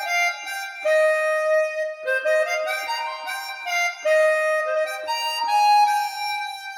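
Instrumental music played back for a speaker sound test on Wharfedale Diamond 9.0 speakers: a single melody of held notes with no bass underneath, trailing off near the end.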